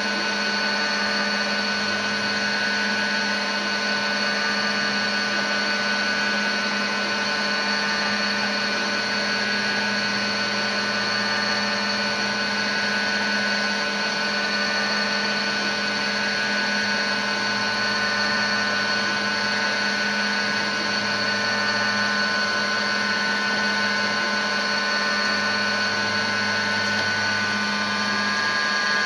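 Tschudin HTG 630 cylindrical grinder running steadily: an even machine hum with several held tones over a hiss.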